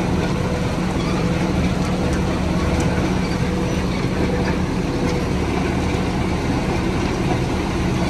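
Heavy truck's Mercedes-Benz MBE900 diesel engine running steadily, with a steady hum over it.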